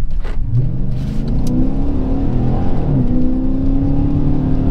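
2019 Dodge Charger Pursuit's 5.7-litre HEMI V8 accelerating hard through its rear-muffler-deleted exhaust: revs climb, drop sharply at an upshift about three seconds in, then climb again.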